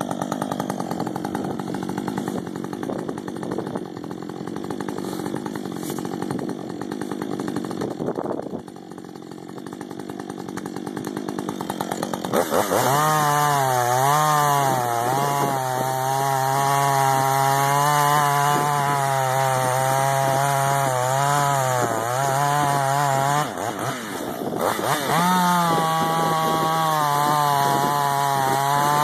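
Husqvarna 562XP two-stroke chainsaw running. About twelve seconds in it goes up to high revs, with the pitch sagging and recovering as the chain works through the wood. Near the end it briefly drops off and then comes back up.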